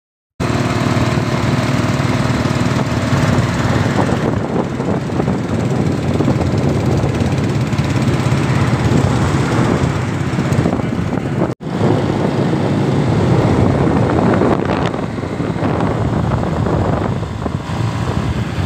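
The engine of a new, zero-kilometre 2016 Honda running steadily, dropping out for an instant about eleven and a half seconds in.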